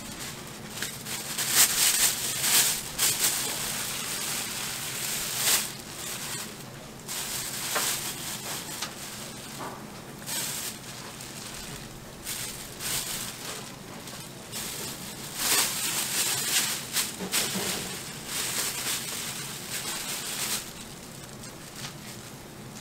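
Thin plastic bags crinkling and rustling in irregular bursts as sliced pork is bagged by gloved hands.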